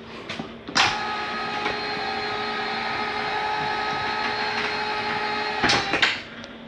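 Electric bunk lift motor of a toy hauler running steadily for about five seconds, a steady motor hum, lowering the bunk; a click as it starts about a second in and clicks as it stops near the end.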